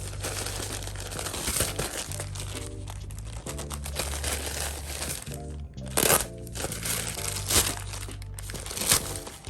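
Packaging crinkling and rustling as it is handled and unwrapped, in irregular bursts with louder crinkles about six, seven and a half, and nine seconds in, over background music with a steady bass line.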